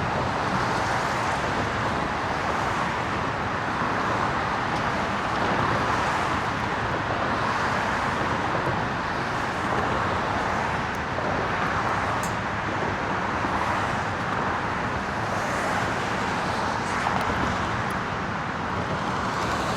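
Steady road traffic noise: a continuous wash of passing cars.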